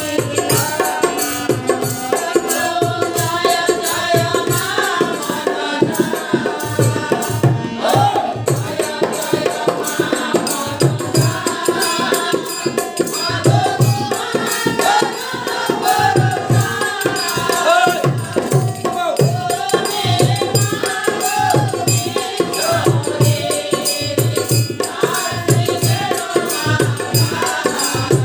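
Bengali devotional group singing of a Manasa kirtan, voices in chorus over a double-headed hand drum beating a steady rhythm and small brass hand cymbals clinking on the beat.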